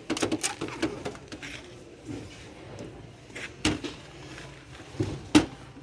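Scattered clicks and knocks of things being handled, a quick cluster at the start and the sharpest knock about five seconds in.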